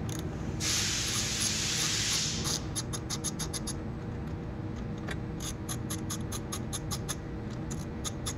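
A socket ratchet wrench with an extension ratcheting off the 10mm mirror-mount nuts: quick runs of clicks, about five a second, in two spells with a short pause between. Before the clicking starts there is about two seconds of scraping noise.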